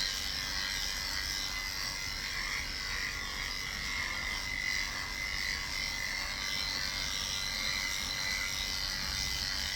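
Small electric motor running steadily with a high, even whine, the kind of whir made by a cat-grooming appliance; it starts and stops abruptly.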